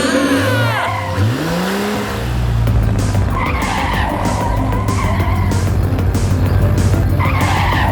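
Cartoon vehicle sound effects: an engine revs up about a second in, then runs steadily with screeching tyres, over background music.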